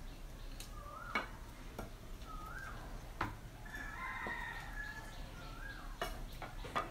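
Several sharp clicks of scissors snipping and knocking as frogs are cut and gutted over a metal basin. A bird calls a few times in the background with short, wavering cries, the longest about four seconds in.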